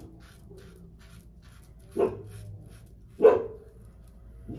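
Dog barking in separate single barks, three of them about a second and a half apart, the middle one the loudest. The dog is alarm-barking at a gardener working outside.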